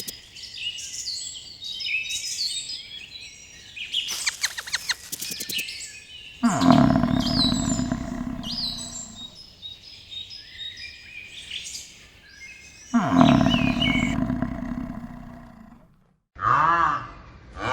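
Small birds chirping all through, with a cow mooing twice in long, low calls, each about two and a half seconds. A short burst of rapid clicking comes about four seconds in.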